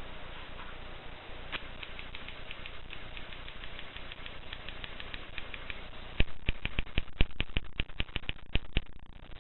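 Mercedes portable typewriter being typed on: light key clicks at first, then from about two-thirds through a quick run of loud keystrokes, about seven a second.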